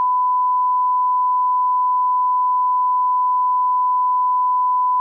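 Steady, unbroken 1 kHz broadcast test tone, the reference tone that accompanies a TV station's colour bars after sign-off.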